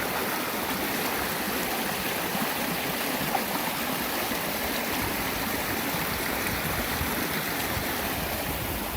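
Flooded creek rushing steadily in high, fast flow, spilling over in a small waterfall, with the water carrying far more volume than its channel was built for.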